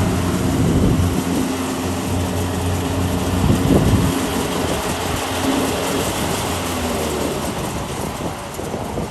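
Kubota DC-70 combine harvester's three-cylinder turbo diesel engine running steadily under a broad rushing noise, with a sharp knock about halfway through. The engine hum fades about seven seconds in, leaving the rushing noise.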